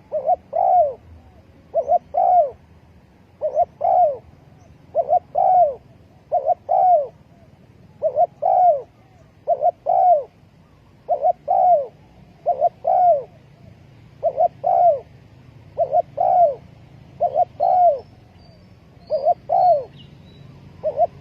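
Spotted dove cooing: a steady run of short phrases of two to three coos, one phrase about every second and a half.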